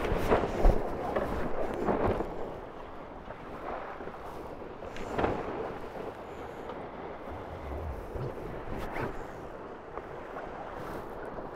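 Water rushing past a Tornado racing catamaran's hulls, with wind on the microphone, as the boat jibes. Several knocks and rattles come in the first couple of seconds and a few more later, then the rush settles, steadier and quieter.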